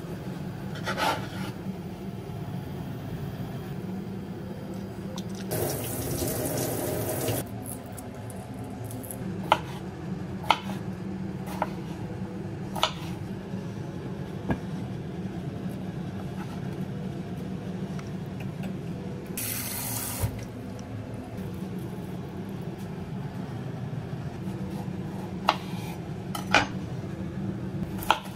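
Kitchen tap running for about two seconds, and again briefly later, among scattered knife taps on a cutting board and utensil clicks, over a steady low hum.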